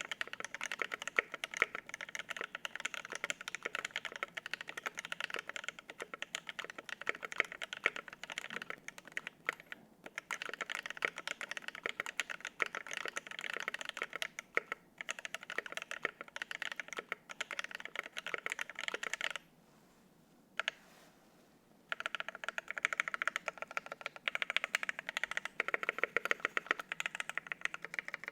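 Fast typing on a custom mechanical keyboard with lubed and filmed Alpaca linear switches on a brass plate with no case foam: a dense run of key clacks, with a pause of about two seconds roughly two-thirds of the way in before the typing picks up again.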